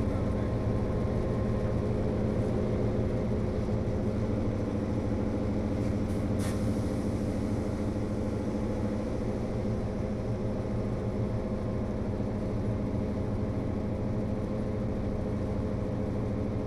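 HO scale model train running: a steady engine-like drone made of several steady tones, with one sharp click about six and a half seconds in.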